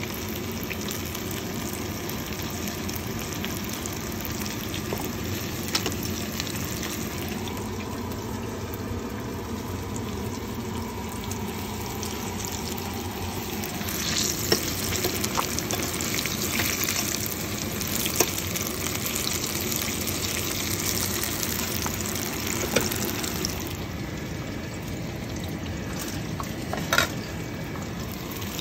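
Fish pakora frying in hot oil: a steady sizzle that grows louder and brighter through the middle stretch. A few sharp clicks are heard along the way.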